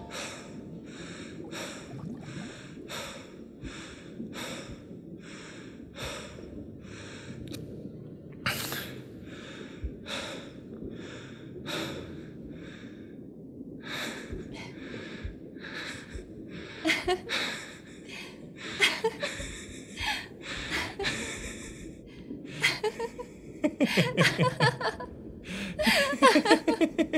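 A person breathing hard in rhythmic gasps, close to two a second, that grow irregular and then break into laughter near the end.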